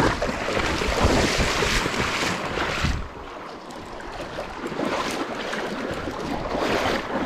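Rushing noise of wind buffeting the microphone together with moving stream water, loud for about three seconds, then dropping away and building up again.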